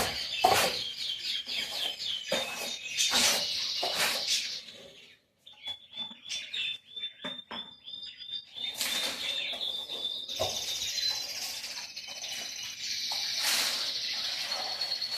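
Small birds chirping and trilling in rapid high series, with a few short knocks and clatters mixed in. The sound cuts out briefly about five seconds in.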